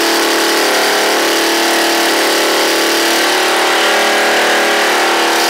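Bajaj Pulsar 150 DTSI single-cylinder four-stroke motorcycle engine running steadily on a test stand, during a test of a biogas and petrol fuel blend; its pitch shifts slightly about halfway through.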